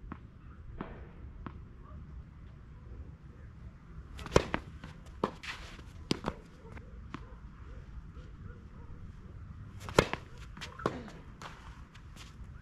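Tennis ball hit with a racket and bouncing on a clay court during a rally: two loud sharp hits about five and a half seconds apart, with lighter hits, bounces and clicks between them.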